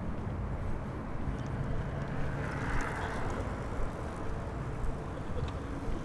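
Steady low rumble of passing road traffic, swelling briefly about halfway through.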